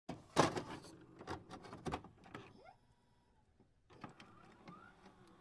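Digital glitch sound effects: a run of sharp clicks and static crackles, loudest about half a second in, with a few short gliding bleeps and a brief gap in the middle.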